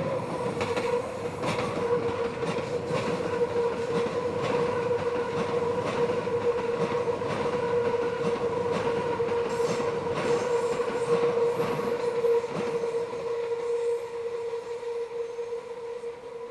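Meitetsu electric train rounding a sharp curve, its wheels squealing in one steady, high tone, with repeated clacks of wheels over rail joints. The train's noise fades near the end.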